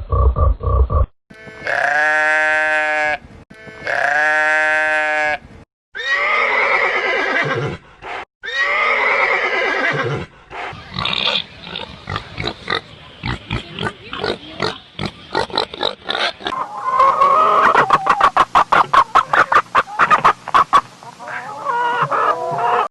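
Recorded farm animal sounds played one after another. First come two long, strongly pitched calls, then two wavering calls, then a run of quick short calls, and from about two-thirds of the way in a fast, even rattling stretch.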